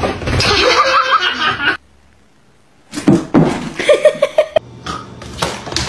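People laughing, in quick repeated bursts, broken by a second-long gap of near silence.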